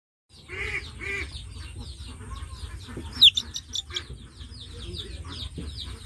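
Baby chick peeping, a steady string of short, high, falling peeps a few times a second, the loudest a little after three seconds in. Two lower calls come near the start, over a low rumble.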